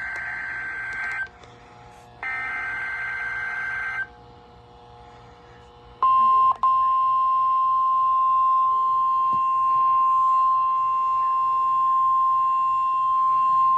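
NOAA Weather Radio emergency alert: two short buzzy bursts of SAME header data, then about six seconds in a steady single-pitched warning alarm tone starts and holds, the signal that a National Weather Service alert (a severe thunderstorm watch) is about to be read.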